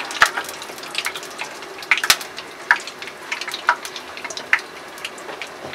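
Whole spices (bay leaves, cumin seeds, green cardamom and cinnamon stick) sizzling in hot oil in a kadhai: a steady hiss with irregular sharp pops and crackles. This is the tempering stage, the spices frying until they darken and release their aroma.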